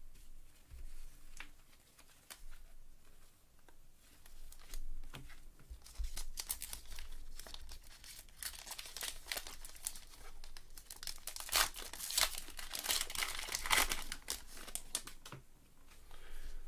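Foil wrapper of a Topps Gypsy Queen baseball card pack crinkling as gloved hands tear it open and pull it off the cards. Faint clicks of cards being handled come first; the crinkling starts about six seconds in and grows dense.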